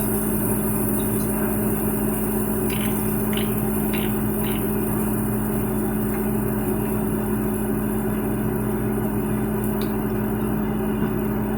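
A steady mechanical hum with a strong low tone, running evenly throughout, with four light clicks about three to four and a half seconds in.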